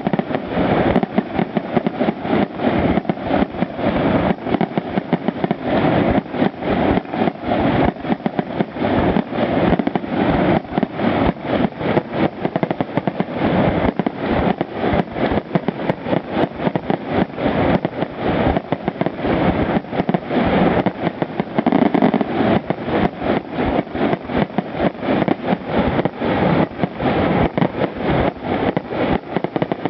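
Fireworks display going off in a dense, unbroken barrage of bangs and booms, several a second.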